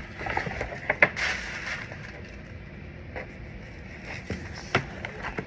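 Packaging being handled: a brief rustle about a second in, with a few light clicks and taps from the products and their boxes.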